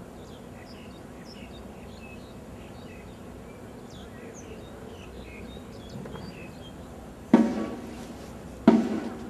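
Two loud shouted parade-ground words of command, each cut off sharply and echoing away, about seven and a half and nearly nine seconds in. Before them, faint scattered bird chirps over a low outdoor hum.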